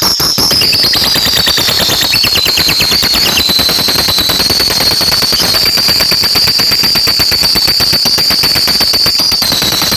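Lovebird 'ngekek' song: one long, unbroken run of rapid, sharp chattering notes, many per second, over a shrill high tone that dips slightly about two seconds in, then holds steady.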